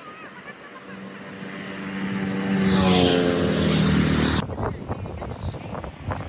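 Engine of a rice harvesting machine running and growing steadily louder as it comes closer. About four and a half seconds in, the steady engine tone breaks off abruptly into irregular knocking and clattering.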